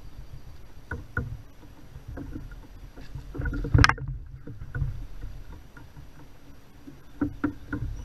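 Knocks and clatter against a kayak while a hooked largemouth bass is fought beside it, with one loud splash at the surface about halfway through.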